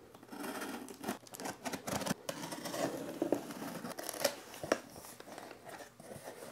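Utility knife slitting the packing tape along the top seam of a cardboard box, then the cardboard flaps being pried apart and folded open, with scraping, rustling cardboard and a few sharp clicks.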